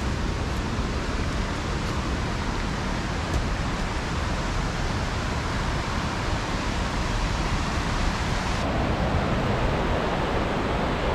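The River Ure pouring over the Upper Falls at Aysgarth: a steady rushing roar of cascading water. Its tone changes abruptly about three-quarters of the way through.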